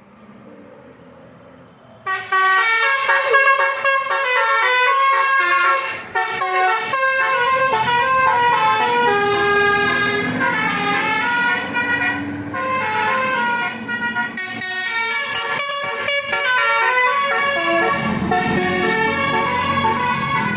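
Bus basuri musical air horn (telolet horn) playing a fast melody of stepped notes, starting suddenly about two seconds in and running on loudly.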